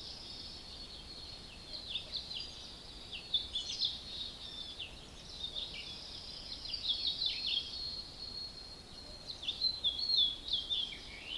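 Birds singing and calling: many short high chirps and quick warbling notes over a steady high trill.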